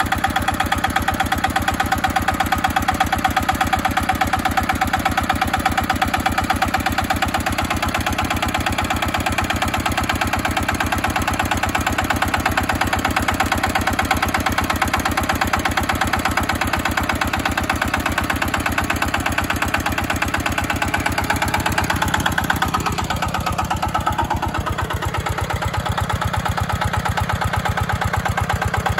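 Single-cylinder diesel engine of a small 13 hp tracked tractor running steadily, an even, rapid chugging of firing beats. It eases off a little for a couple of seconds late on, then runs evenly again.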